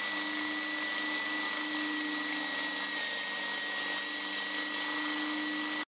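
Power drill running steadily, its bit boring into a hole in a rusted wheel hub flange, with a constant high whine over the motor noise. It cuts off abruptly just before the end.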